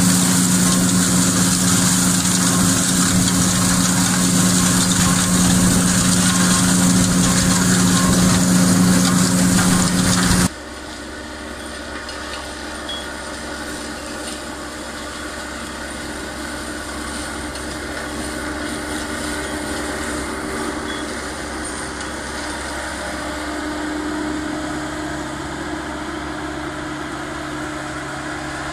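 John Deere 5500 tractor's diesel engine running steadily under load while driving a flail mulcher through maize stalks, with a steady low hum and a hiss from the shredding. About ten seconds in the sound drops abruptly to a quieter, more distant version of the same steady running.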